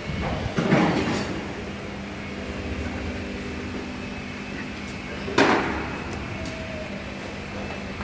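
Two knocks in a body shop, one about a second in and a sharper one about five seconds in, over a steady workshop hum.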